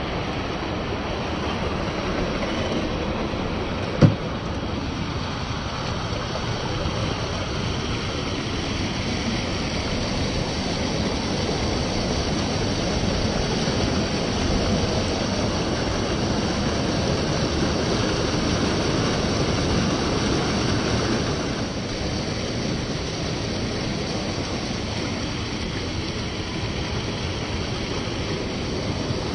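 Steady rush of water from a stream or falls, with a single sharp knock about four seconds in.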